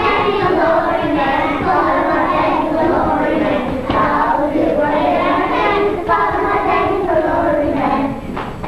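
A class of young children singing together, the singing stopping about eight seconds in.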